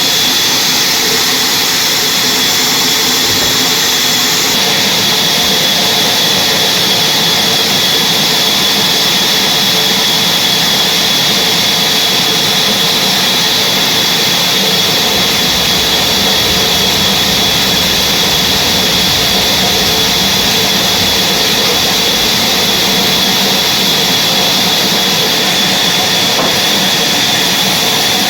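Sawmill saw running steadily and loudly through a large log, with a constant high whine over dense machine noise.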